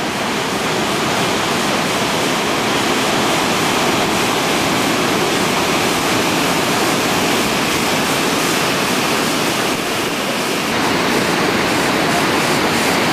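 Heavy sea surf breaking and churning against rocks: a loud, steady rush of foaming water.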